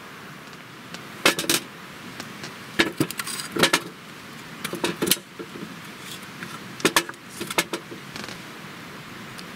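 Split firewood logs set down one after another on the steel grate of a Snow Peak Takibi fire pit: a series of sharp wooden knocks and metallic clatters in small clusters, over a steady hiss.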